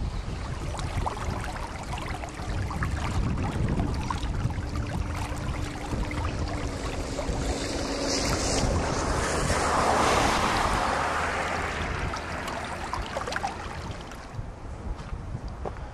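Snowmelt water rushing, with wind buffeting the microphone; the rushing swells louder about ten seconds in, then eases off.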